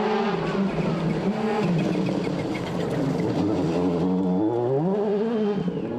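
A World Rally Car's turbocharged four-cylinder engine running hard, its pitch rising and falling with throttle and gear changes. Near the end it dips low, then climbs steeply.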